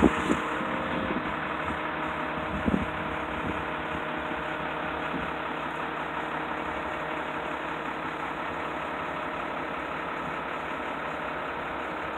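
Bucket truck's engine running steadily at idle, with two or three short clunks in the first three seconds.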